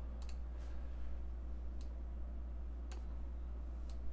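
A faint, steady low electrical hum with a few faint, scattered ticks.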